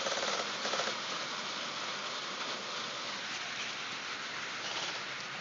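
Heavy rain falling steadily in a downpour, an even hiss of drops.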